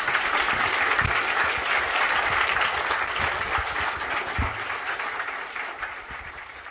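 Audience applauding, dense clapping that slowly fades away over the last couple of seconds.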